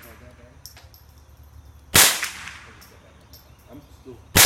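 Tippmann AR-22LR semi-automatic .22 LR rifle firing two single shots about two and a half seconds apart, each a sharp crack with a short echoing tail.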